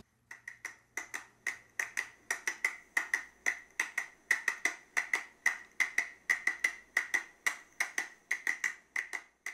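A steady, fast run of light clicks, like a wood block or a ticking clock, about five a second, each with a short high ring.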